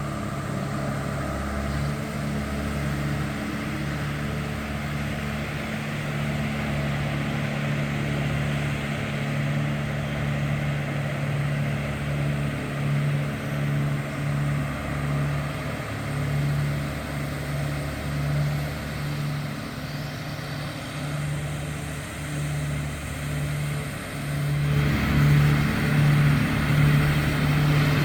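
A vehicle engine running steadily, its low hum pulsing about once a second over a rumble, getting louder a few seconds before the end.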